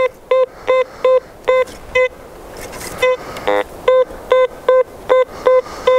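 Teknetics T2+ metal detector in discrimination mode beeping on each sweep of its coil over a German steel helmet buried 1.3 m deep: short, steady mid-pitched tones about two and a half times a second, with a brief pause near the middle and one lower, buzzier tone just after it. The deep target registers without problems.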